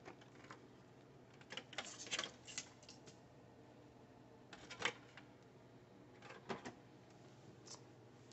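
Faint scattered clicks and light knocks of hands handling a sheet of paper and the laser printer's scanner lid, coming in a few small clusters with the sharpest click about five seconds in.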